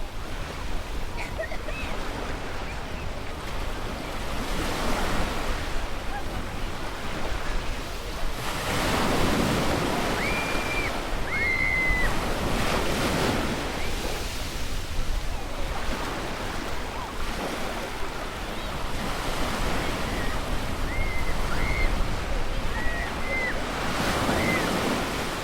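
Ocean surf washing onto a beach, a steady rush that swells and falls back as waves come in. A few short, high calls rise above it in two clusters, around the middle and near the end.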